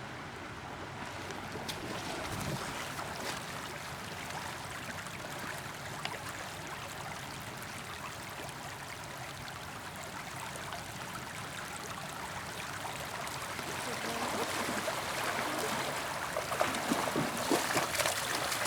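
Flowing river: a steady rush of water that grows louder over the last few seconds.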